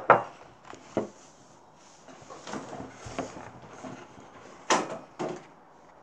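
Pages of a hardcover picture book being turned and the book handled: a handful of short paper rustles and light knocks, two of the sharper ones close together near the end.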